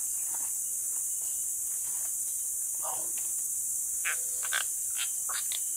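Steady high-pitched drone of tropical forest insects. In the last two seconds come a few short scratchy sounds while a caught baung catfish is being unhooked.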